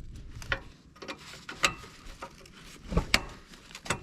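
Scattered light clicks and knocks of hand work on a riding mower deck's hanger pins and linkage, about half a dozen, the loudest pair about three seconds in.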